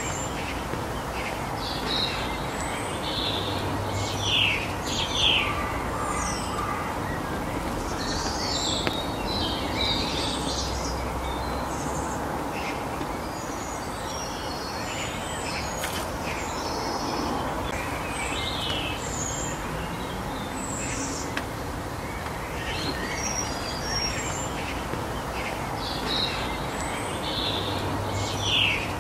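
Small songbirds chirping and singing in short, scattered phrases over a steady outdoor background rush.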